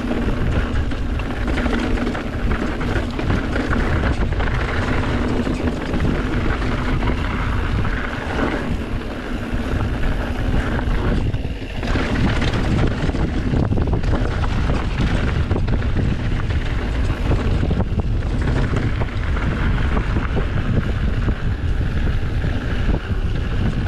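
A mountain bike descending a dirt trail: steady wind rushing over the action camera's microphone, with tyre roll and the bike rattling over the rough ground.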